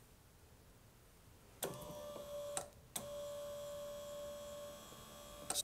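La-Z-Boy electric recliner's power actuator motor running, driving the mechanism: a steady whine that starts about a second and a half in, stops briefly about a second later, then runs again for about two and a half seconds.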